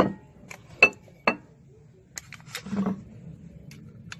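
Glazed ceramic dish clinking and knocking on hard surfaces as it is handled and turned over: three sharp knocks in the first second and a half, then a short clatter of several knocks around two to three seconds in, and one last tick near the end.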